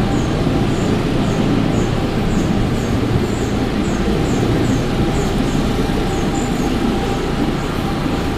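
Steady outdoor background noise with a low rumble, and a faint high chirp repeating about twice a second.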